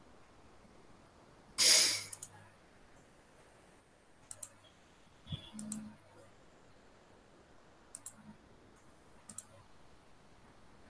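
Computer mouse clicking: short sharp clicks, several in quick pairs, every second or two over quiet room tone; the loudest, about two seconds in, is a longer scratchy one.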